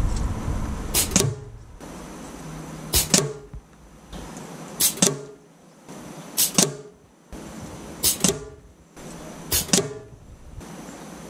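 Six sharp shots from a pre-charged pneumatic air rifle, about one every one and a half to two seconds, each a short crack with a brief ringing tail.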